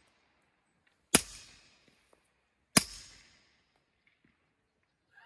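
Two suppressed 9mm pistol shots through a Microtech Defense Industries R2K9 suppressor, about a second and a half apart, firing 147-grain Speer Lawman rounds. Each is a sharp crack with a short fading tail.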